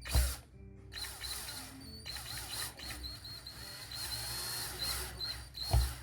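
Power drill/driver running for several seconds with a steady high whine and a few brief pauses, as if driving screws; a knock sounds at the start and another near the end.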